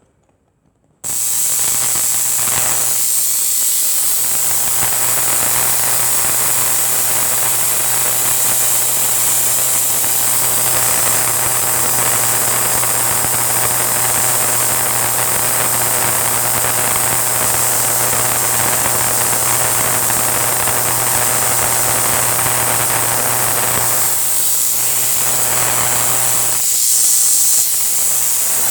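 Home-built Tesla coil switched on about a second in and running: the adjustable spark gap firing, fed by a 10,000-volt oil-burner ignition transformer. It makes a loud, steady hissing buzz with a strong mains hum under it.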